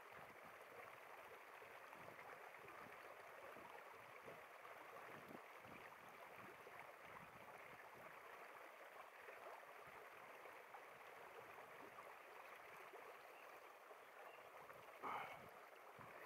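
Faint, steady running water of a stream, with one brief louder sound near the end.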